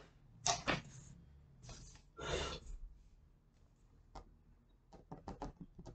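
A few short breathy noises from a man, then near the end a quick run of short scratchy graphite-pencil strokes on drawing paper.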